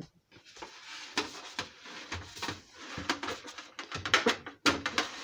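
Clattering and scraping of a metal sheet pan and spatula, a run of irregular sharp clicks and knocks.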